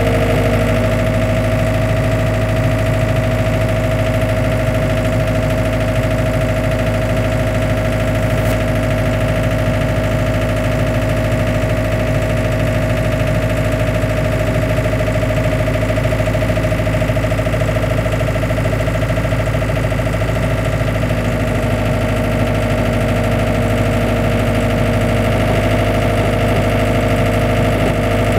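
Compact excavator's diesel engine running steadily while the machine lifts a heavy steel frame, its note shifting slightly about half a second in and again around twenty seconds in.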